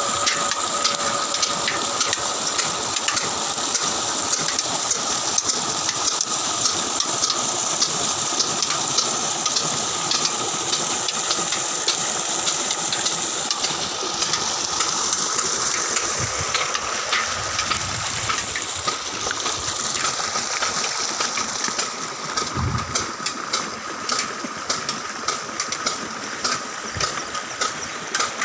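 Water gushing from a pump outlet pipe into a concrete tank, over the steady running of the old black diesel engine that drives the pump. In the last few seconds the rush of water fades and the engine's beat comes forward.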